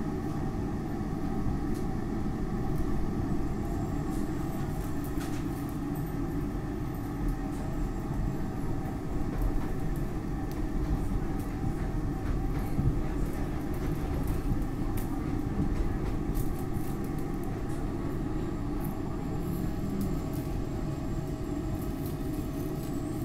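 SEPTA Market-Frankford Line M-4 elevated train running, heard from inside the car: a steady rumble of wheels on the rails with a steady hum of tones over it.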